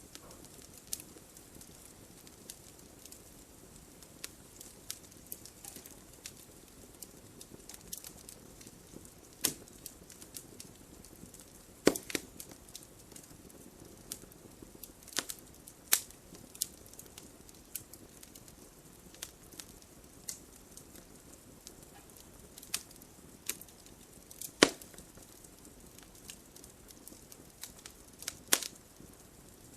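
Wood fire in a fireplace crackling: irregular sharp snaps and pops from the burning logs, several of them loud, over a soft steady hiss of the flames.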